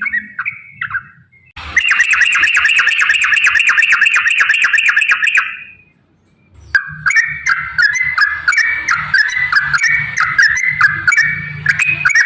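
Yellow-vented bulbul (trucukan) singing: a few short notes, then a long fast rolling trill that fades out after about four seconds, a brief pause, and a run of quick bubbling warbled phrases to the end.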